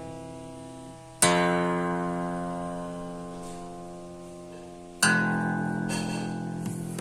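Acoustic guitar chords strummed one at a time and left to ring: two chords struck about a second in and about five seconds in, each slowly dying away.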